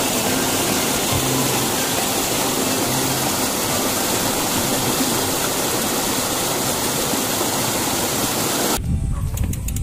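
Loud, steady rush of a fast, shallow rocky stream, with faint music underneath. About nine seconds in it cuts off abruptly, replaced by a low rumble.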